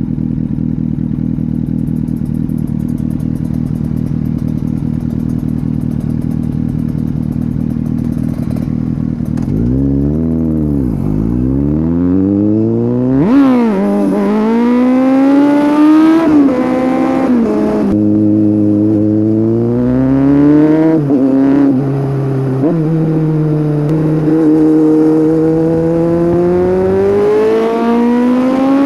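Kawasaki Z800 inline-four engine through a Scorpion aftermarket exhaust. It runs at a steady pitch for about nine seconds, then dips and revs up again in several rising pulls, each ending in a sudden drop in pitch.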